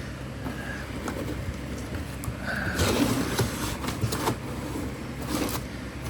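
Packaging rustling by hand, with scattered clicks and knocks, as a parcel is unwrapped. The busiest rustle comes about three seconds in.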